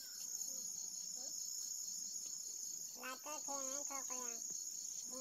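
Crickets chirring in a steady, high-pitched chorus, with a person's voice calling briefly about three seconds in.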